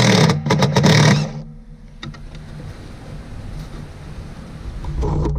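DeWalt 20V cordless impact driver with a 10 mm socket running in two loud bursts with a short break between them, backing out a hood-latch bolt; it stops about a second and a half in. A low knock follows near the end.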